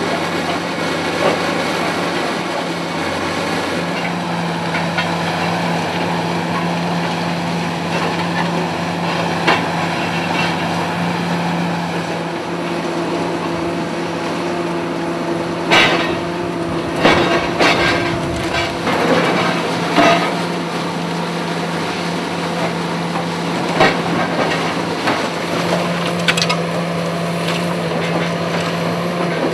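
High-reach demolition excavator's diesel engine running steadily, with a cluster of sharp crashes and knocks a little past halfway and a few more later, as its jaws break concrete from the top of a tower block and debris comes down.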